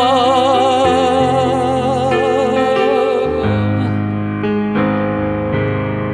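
A man's voice holding the song's final sung note with vibrato over sustained electric keyboard chords; the voice stops a little past halfway and the keyboard plays on alone with a few new chords.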